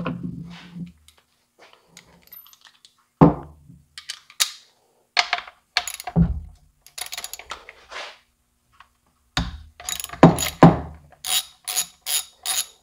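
Hand tools and chainsaw parts handled on a workbench: scattered knocks and clunks, then from about eleven seconds a socket wrench ratcheting in a steady run of clicks, about three a second, as the chainsaw's side-cover bar nuts are turned to change the bar and chain.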